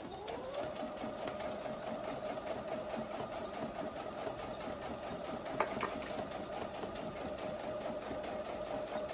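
Electric sewing machine starting up, its motor whine rising over the first half second, then stitching at a steady speed with a fast, even ticking of the needle. A brief click sounds about halfway through.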